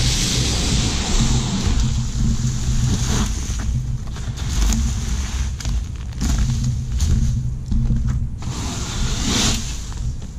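Dry dead vines and brush being raked across a gritty flat roof, coming as rough scraping and rustling in repeated strokes, over a steady low engine-like hum.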